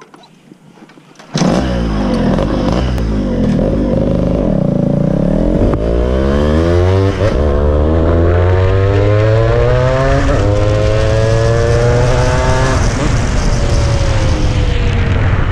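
Fully ported Yamaha RX135 single-cylinder two-stroke motorcycle engine. It comes in suddenly about a second in, then accelerates hard through the gears: the engine pitch climbs and drops back at each shift, three times, with the revs falling away near the end.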